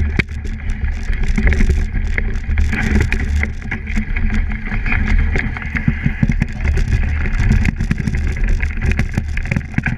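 Plastic sled sliding fast over snow, picked up right on the sled: a loud, steady scraping rumble with scattered crunchy clicks.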